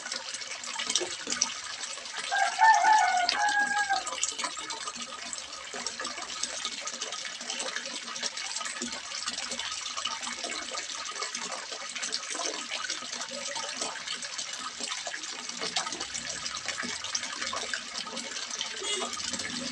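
Water splashing and gushing steadily into a small fish pond. A short pitched call rises above it about two seconds in.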